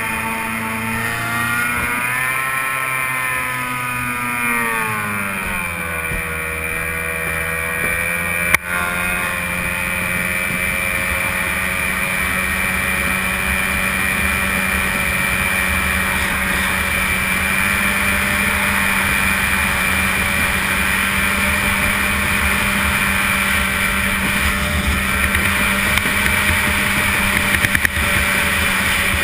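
Stock outboard racing engine on an A-Stock hydroplane running hard, heard from onboard with wind and water noise. Its pitch bends and drops a few seconds in, then holds steady. A single sharp knock comes at about nine seconds.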